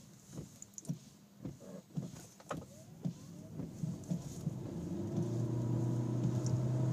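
Performance-tuned 2013 Chevrolet Volt accelerating hard from a near stop. A steady low drivetrain hum builds and gets louder from about four seconds in as speed climbs, with scattered light clicks and knocks before it.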